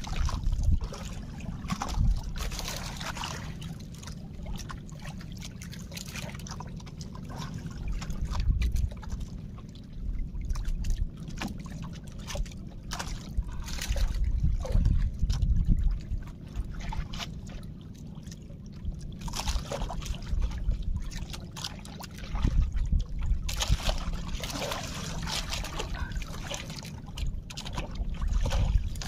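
Seawater sloshing and trickling against the hull of a small fishing boat, coming in irregular splashy surges over a steady low rumble.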